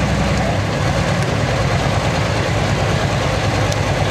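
Super stock pulling tractor's turbocharged diesel engine idling loud and steady at the end of a pull, a deep rumble under a haze of noise.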